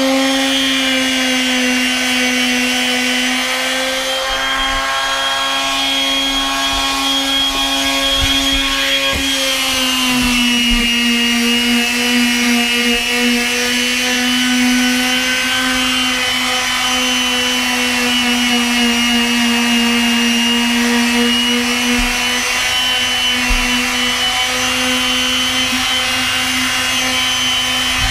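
Makita random orbit palm sander running continuously on deck boards: a steady electric motor whine whose pitch dips slightly about nine seconds in, then wavers a little.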